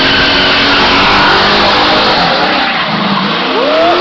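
Chevrolet Malibu station wagon doing donuts: its engine revving hard over tyres squealing on the pavement, the engine pitch rising sharply near the end.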